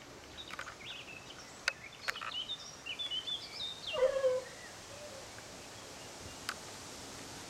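Rhodesian Ridgeback puppies squeaking and yelping as they play-fight: a run of short high squeaks ends in a louder squeal that falls in pitch about four seconds in. A few sharp clicks sound in between.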